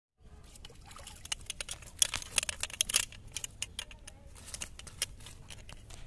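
A hooked fish splashing at the water's surface as it is pulled in: a quick run of splashes and patters, loudest about two to three seconds in.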